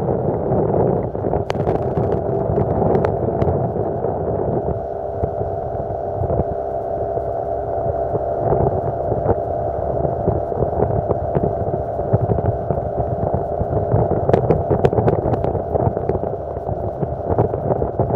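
Yamaha 40 hp two-stroke outboard motor running steadily at cruising speed, a constant drone with a few held tones through it, mixed with wind and water rush as the boat moves along.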